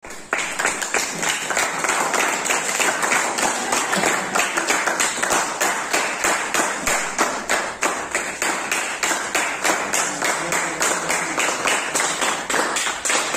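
A small group of people clapping their hands steadily, the claps coming several times a second in an even rhythm.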